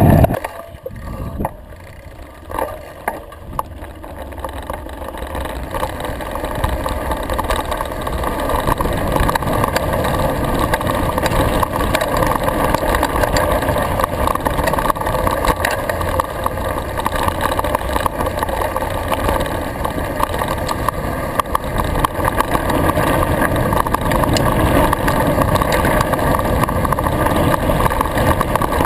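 Mountain bike rolling fast downhill over grass and a dirt track: a steady rushing rumble of knobby tyres with many small rattles and knocks from the bike. It is quieter for the first few seconds, then builds as speed picks up.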